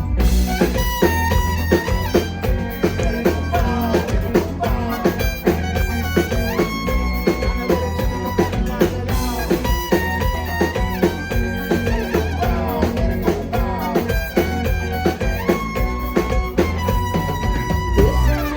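Live Latin pop band playing an instrumental passage with a steady drum-kit beat, bass and brass.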